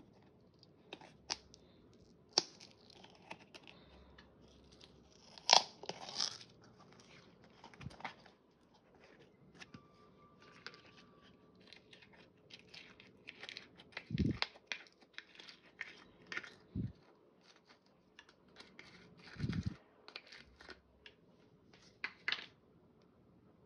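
Small plastic slime tub being handled and opened, with crackling plastic and a sharp snap of the lid coming off about five and a half seconds in. Later come a few dull thuds as the slime is squeezed out of the tub into a metal pan.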